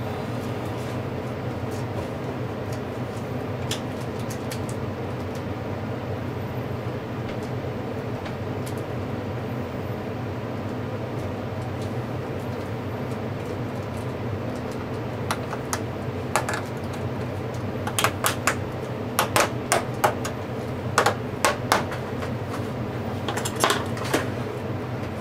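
Sharp metallic clicks and snaps in clusters through the second half as thin metal shield covers are pried off an iPad logic board, over a steady low hum.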